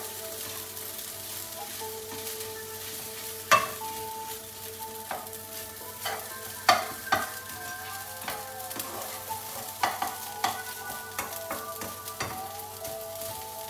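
Fried rice sizzling in a pan as a spatula stirs and scrapes it, with sharp clacks of the spatula striking the pan every second or so; the loudest strikes come about three and a half and six and a half seconds in.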